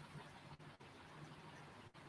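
Near silence: faint steady hiss with a low hum.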